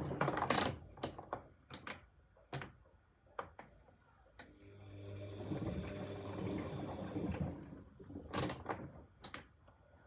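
Bosch Exxcel 1400 front-loading washing machine in its wash cycle: the drum motor runs with a steady hum, stops, then starts again about four and a half seconds in for about three seconds. Sharp knocks sound in the pauses.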